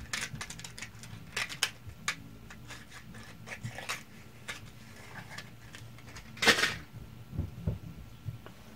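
A package of pinned scroll saw blades being opened and a thin steel blade pulled out by hand: scattered small clicks, ticks and crinkles, with one louder rustle about six and a half seconds in.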